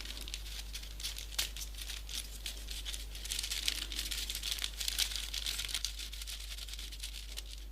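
Folded paper 3D origami pieces crinkling and rustling under the fingers as they are pushed into place: a continuous run of small, light crackles and clicks.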